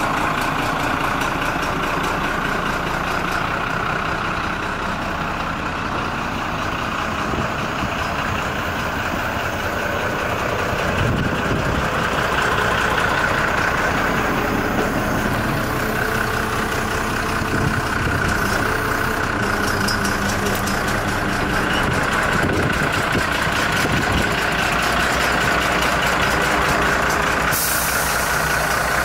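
Iveco Eurocargo 135E23 truck's diesel engine idling steadily.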